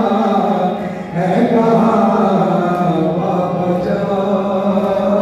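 Noha, a Shia lament, chanted live in long held vocal lines over an amplified sound system, with a short break about a second in before the next line starts.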